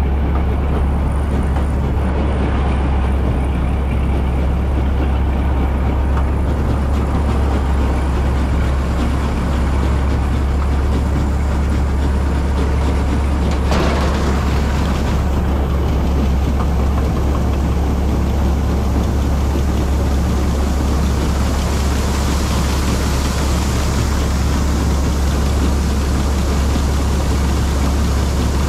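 Combine harvester running steadily under load while harvesting, a constant deep engine drone with machinery noise over it, with one short knock about halfway through.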